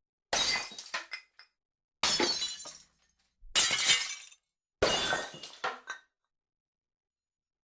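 Glass shattering four times in a row, each a sudden crash followed by falling shards tinkling and dying away within about a second.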